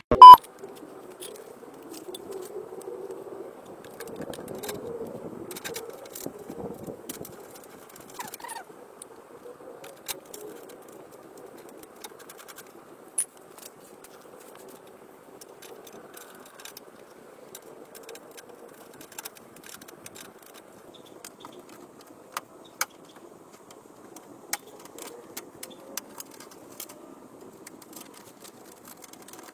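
Rear diffuser being fitted to a car by hand: scattered light clicks, knocks and scrapes of parts and tools over a faint steady hum, with one sharp loud click at the very start.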